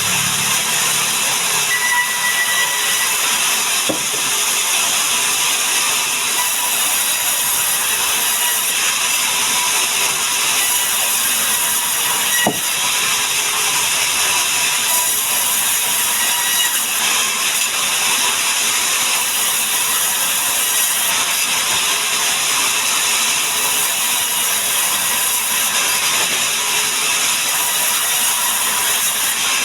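Sawmill saw cutting mahogany, a loud, steady, hissing mechanical noise that shifts slightly every few seconds, with a single sharp click about halfway through.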